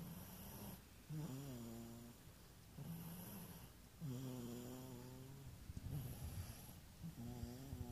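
A sleeping man snoring, congested from a cold. Three snores come about three seconds apart, each with a wavering pitch, and softer breaths fall between them.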